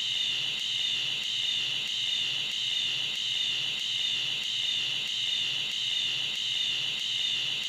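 Sound effect of a great many ping-pong balls bouncing at once: a dense, high-pitched clatter blurred into a steady hiss, swelling slightly about twice a second.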